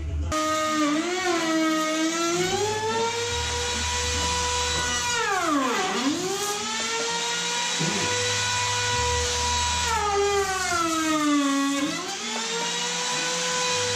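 Handheld corded power tool with a wood-removal bit, its motor whining high and steady while cutting into overhead wood framing. The pitch drops sharply about six seconds in and again near the end as the motor bogs down under the cut, then climbs back up.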